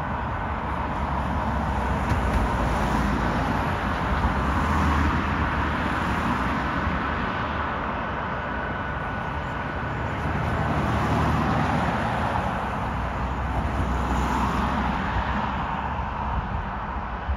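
Boeing C-17 Globemaster III's four Pratt & Whitney F117 turbofan engines running as the jet rolls along the runway: a steady jet rumble and hiss that swells and eases a couple of times.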